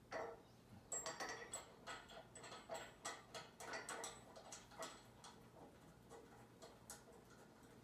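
Light metallic clicks and taps, a few a second, from hand work on the desk's metal frame hardware during assembly. They thin out to a few faint ticks after about five seconds.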